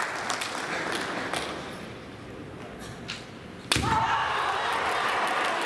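A single sharp crack of a kendo strike landing, a bamboo shinai hitting armour, about two thirds of the way in, after a brief lull in the hall noise. It is followed at once by a sustained shout and the crowd starting to applaud the point.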